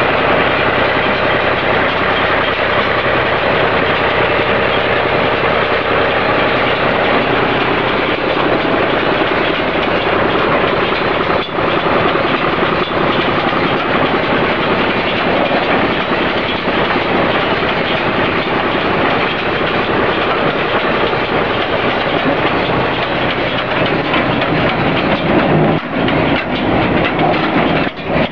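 Welger WSA 350 small square baler working hay behind a tractor: a loud, steady mechanical clatter over the tractor's engine running.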